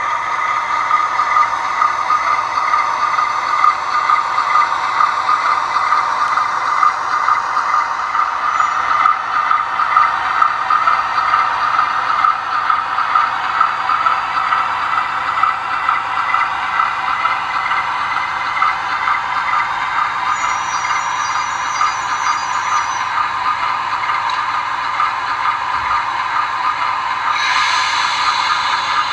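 HO-scale Conrail B36-7 model locomotive's sound decoder playing its GE diesel engine sound through the model's small speaker as it runs along the track, steady throughout. A short hiss comes near the end.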